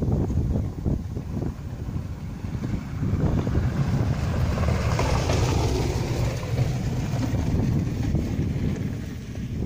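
Wind rumbling and buffeting on a phone's microphone, with a louder rushing hiss that swells about four seconds in and fades away again before the end.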